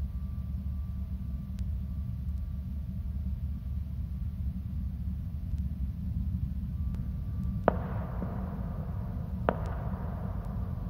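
Two distant firework bangs about two seconds apart in the second half, each trailing off in an echo, over a steady low rumble.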